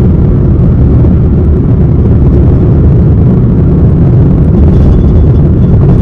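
Loud, steady low rumble of wind and road noise inside a moving car.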